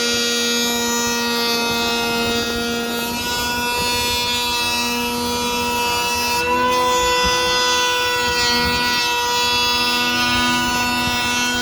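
DeWalt cordless hand planer running at full speed while planing a wooden door, a steady high whine with many overtones. Its pitch shifts slightly about three seconds and again about six and a half seconds in.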